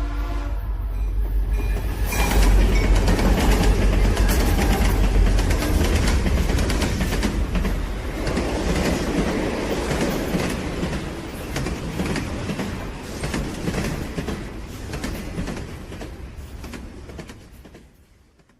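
Loud low rumble with rapid clattering, which swells about two seconds in and then fades out near the end.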